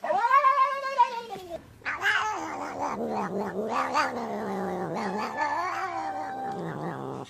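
A cat yowling: a short arching meow, then from about two seconds in a long, low, wavering yowl that cuts off near the end.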